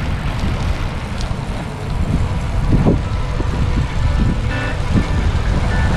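Wind buffeting a moving camera's microphone while cycling along a road, with tyre and road noise underneath. Faint steady tones come in near the end.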